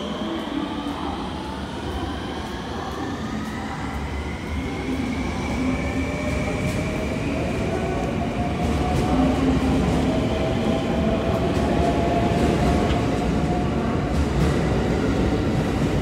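521-series electric multiple unit pulling away from the platform: its inverter-driven traction motors whine, the pitch climbing as the train gathers speed, over the rumble of the cars rolling past. The sound grows louder about halfway through as the cars pass close by.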